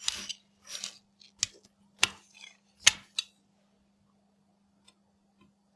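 Hands handling PC-build packaging and parts: a few short rustles and about five sharp clicks and taps in the first three seconds, then quiet with a faint steady hum underneath.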